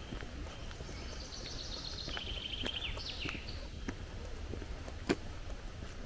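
Footsteps on a gravel forest path, with a songbird singing one song about a second in: a run of high notes falling into a quick trill and ending in a short flourish. A single sharp click, the loudest sound, comes near the end.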